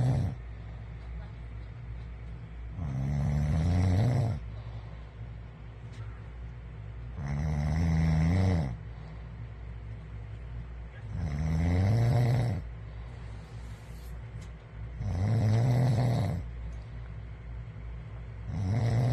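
A man snoring, a rasping snore about every four seconds, each about a second and a half long, with a steady low hum between snores.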